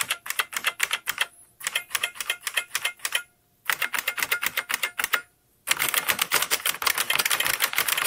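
IBM Model M keyboard's buckling-spring key switches being typed on fast, in quick runs of loud, clicky keystrokes with a ping, almost like a typewriter. The typing stops briefly three times, then runs on without a break through the last part.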